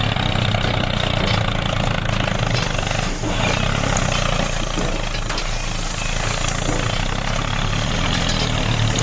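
Heavy vehicle engine running steadily with a low, even drone, with a brief dip about three seconds in.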